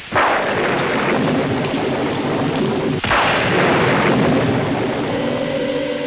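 Thunderstorm sound effect: steady heavy rain with two sudden thunderclaps, one just as it begins and one about three seconds in, each fading away over about a second. Near the end a car engine's steady hum comes back in under the rain.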